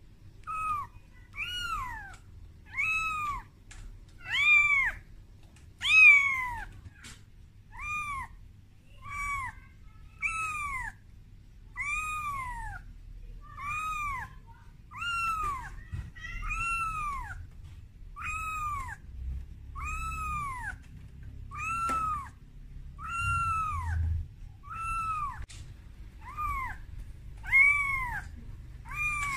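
Very young calico kitten meowing over and over, about one cry a second, each rising then falling in pitch: a frightened kitten's distress calls for its mother.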